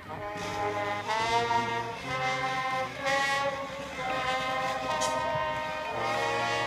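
Brass band starting up and playing slow, held chords over a low bass line, the notes changing about once a second.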